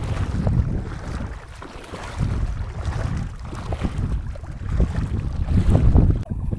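Wind gusting on the microphone over sea water sloshing around someone wading, coming and going in uneven surges.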